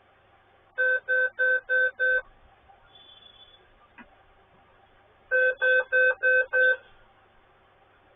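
Dell Inspiron Mini 11z netbook beeping at power-on: five short, evenly spaced beeps, a pause of about three seconds, then the same five beeps again. This is the startup beep error code that comes with its no-display fault.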